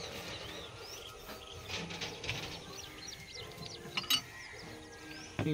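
Plastic screw cap of a diesel jerrycan being twisted open with small clicks, then a sharp knock about four seconds in; birds chirp throughout.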